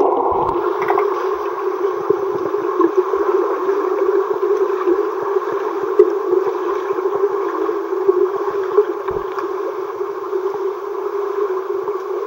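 Muffled, steady rush of pool water as picked up by a camera submerged underwater, with occasional faint knocks.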